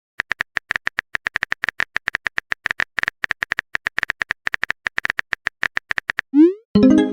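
Phone-keyboard typing sound effect: a quick, irregular run of short clicks, each with a small beep-like tone. Near the end it stops, followed by a quick rising swoop and a short electronic chime.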